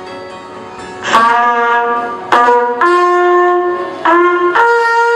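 Brass fanfare, trumpet-like: five loud held notes start about a second in, over faint background music. It heralds the king's entrance.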